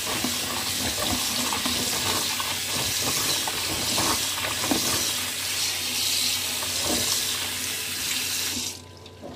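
Tap water running into a plastic bowl of raw in-shell peanuts in a steel sink while a hand rubs and stirs them clean. The tap is shut off suddenly near the end.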